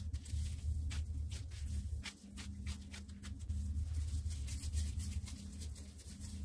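Plastic-gloved hands kneading and squeezing crumbly semolina dough in a glass bowl: a string of soft crinkly clicks and rustles from the gloves and dough, over a steady low hum.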